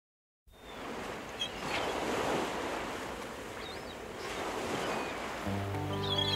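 Outdoor rushing noise that swells and fades, with a few short high bird chirps. Music with steady low notes comes in near the end.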